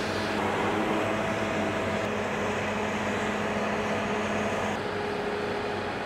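Fendt 10T combine harvester running steadily while unloading oilseed rape through its unloading auger into a trailer: an even machinery hum with a few held tones.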